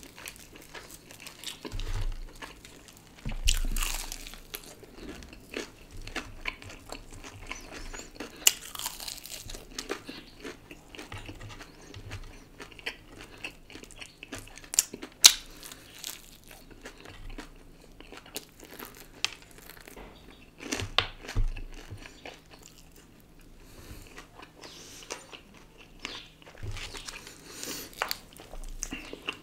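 Close-up mukbang eating of crispy KFC fried chicken: crunchy bites into the coating and chewing, with scattered sharp crackles.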